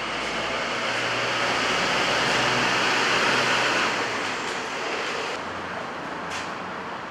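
A passing vehicle in city traffic: a rushing noise that swells to its loudest about three seconds in, then fades, over a low hum.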